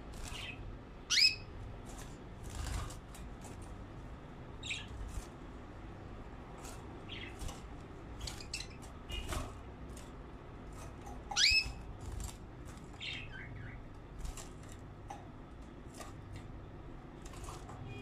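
Pet canaries in a wire cage giving scattered short chirps and calls, two of them louder calls that sweep upward in pitch, among light flutters and taps of the birds moving about the cage.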